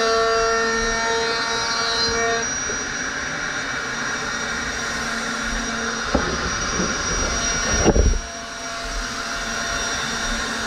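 Handheld router running steadily, its motor whining as it is guided along a profiling jig, cutting the foam of a surfboard blank. It grows rougher and louder briefly about six and again about eight seconds in.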